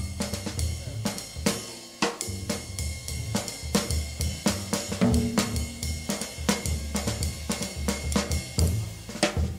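Band music with a drum kit keeping a steady beat (snare, hi-hat and cymbals) over a bass line; sustained pitched instrument notes join about halfway through.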